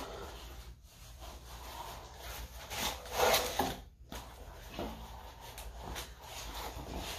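Body and clothing rubbing and scuffing against a garage floor during a floor exercise, in irregular noisy strokes, the loudest about three seconds in.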